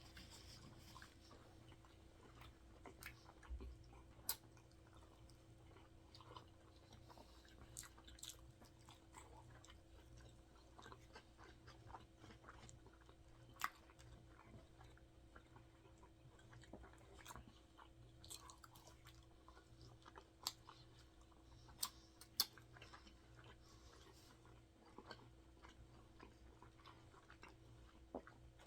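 Quiet close-up chewing and biting sounds of people eating a burger meal, with scattered soft mouth clicks and a few sharper clicks, over a faint steady hum.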